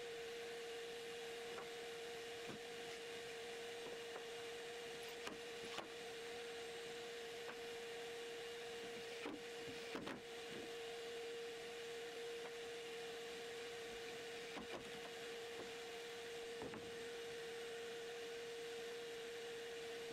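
A steady, faint hum with a scattering of soft wooden knocks and taps as MDF spoilboard pieces and small wooden blocks are handled and set down on the CNC bed.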